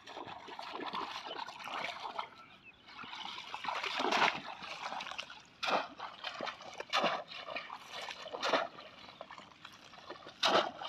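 Shallow, muddy field water splashing and sloshing as a bamboo polo basket trap is thrust down into it and a person wades. There are about five sharp, loud splashes in the second half, roughly one every second and a half.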